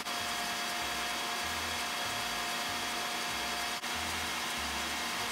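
KitchenAid stand mixer running at medium-high speed, its motor giving a steady whine as the whisk beats eggs and sugar into a pale, airy batter. The sound drops out for an instant almost four seconds in.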